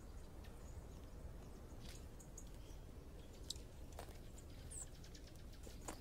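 Small songbirds at a seed feeder: a few faint, short, high chirps about halfway through and scattered soft clicks, over a low steady background rumble.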